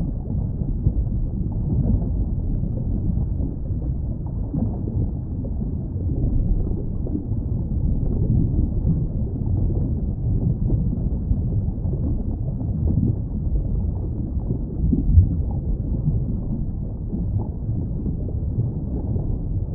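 Underwater ambience: a steady, muffled low rumble, with one brief louder swell about 15 seconds in.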